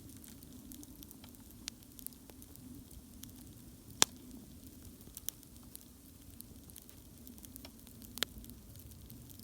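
Wood campfire burning: a soft steady rush of flame with scattered sharp crackles and pops, the loudest about four seconds in and another just after eight seconds.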